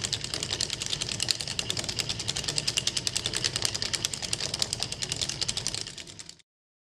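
Rapid mechanical clicking sound effect, about ten even clicks a second over a low hum, like a typewriter or clockwork; it cuts off suddenly near the end.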